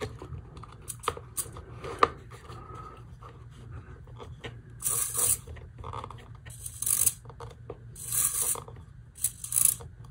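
Hobby micro servo's small motor and plastic gear train whirring in four short bursts, each about half a second, as a servo tester swings its arm back and forth between end positions. A few sharp clicks near the start, from the connector and tester buttons.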